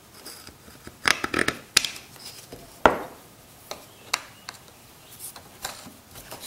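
Hands fitting a plywood jig onto a chainsaw bar and screwing a golf-ball knob onto its bolt: scattered clicks, short rubs and knocks of wood and metal, the sharpest knock about three seconds in.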